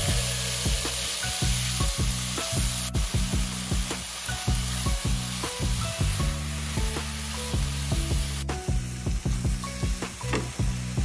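Diced meat, cabbage and carrot sizzling in a hot wok as they are stir-fried with a wooden spatula, over background music. The sizzle thins out from about eight and a half seconds in.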